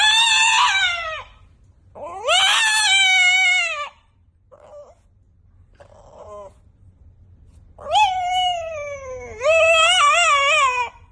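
A cat yowling in long, drawn-out meows: four loud calls, the last one wavering up and down in pitch, with two faint short meows in between.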